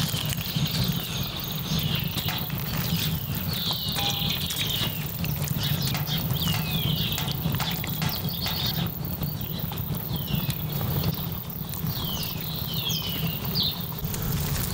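Beef bulgogi hotpot cooking on a cauldron lid over a wood fire, with a steady low rumble and many small pops and crackles. Birds call repeatedly with short descending whistles.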